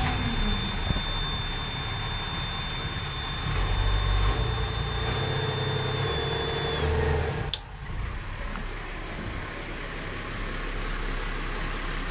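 Inboard marine diesel engine just started and running at idle, with a steady high-pitched warning tone over it that stops about seven seconds in. There is a sudden break shortly after, and then the engine runs on steadily.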